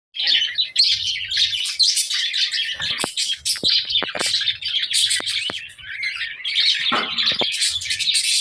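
A flock of budgerigars chattering and warbling together, a dense overlapping mix of chirps and sharp clicks.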